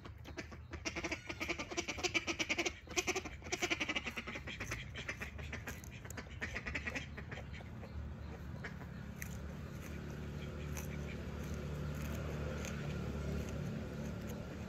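An animal calling in a fast run of rapid pulsed calls through the first half, then a low steady hum.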